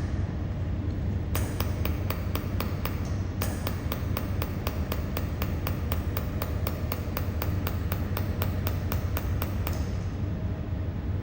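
Pulsed YAG mold laser welder firing, a sharp tick with each flash-lamp pulse at about four a second, in two runs with a short break after about two seconds, over a steady low hum from the running machine.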